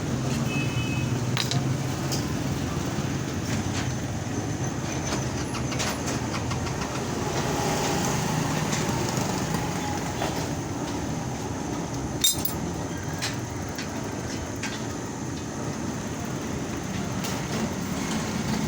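Steady low rumble of background noise with scattered light clicks and clinks, and one sharp metallic clink about twelve seconds in.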